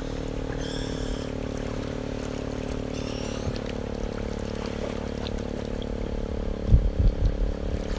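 Water trickling and lapping over the steady hum of a running motor, with a few low knocks near the end.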